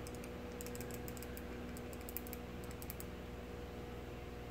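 Faint, rapid light clicks in several short clusters, like keys tapping, over a steady low hum.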